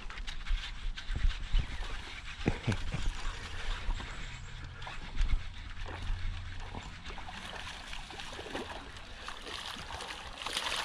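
A hooked bass splashing and thrashing at the water's surface near the end as it is reeled toward the boat, after scattered knocks and clicks from handling the rod in the boat.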